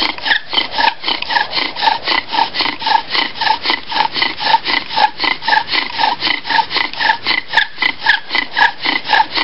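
Bow drill in use: a wooden spindle driven back and forth by a bow, grinding in a wooden hearth board with a squeaky rasp on every stroke, about four strokes a second. The friction is filling the notch with wood dust on the way to an ember.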